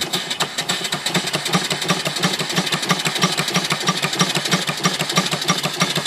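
Single-cylinder Allen steam engine running steadily on boiler steam, its exhaust chuffing in a rapid, even beat of about seven a second.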